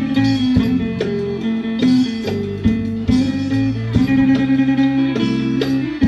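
Northeastern Thai pong lang ensemble music: a plucked-string melody moving quickly from note to note over held low notes.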